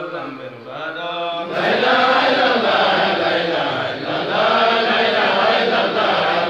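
Men chanting in Islamic devotional style. One voice at first, then many voices come in louder together about a second and a half in.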